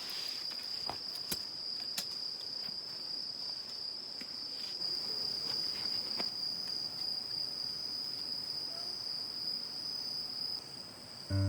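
Crickets trilling in one steady, unbroken high-pitched chorus, with a few faint clicks early on. Music comes in right at the end.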